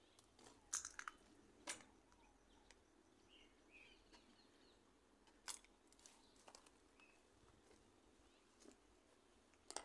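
Near silence: quiet outdoor background with a few faint, scattered clicks and, three to four seconds in, faint bird chirps.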